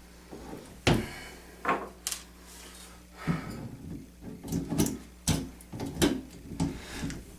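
Channel-lock pliers clicking and knocking against a faucet's metal stem and body, a series of irregular sharp knocks as the stuck piston is worked loose.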